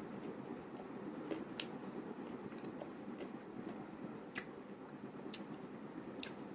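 Close-miked eating sounds: a handful of sharp, brief clicks and small wet mouth sounds over a steady low hum.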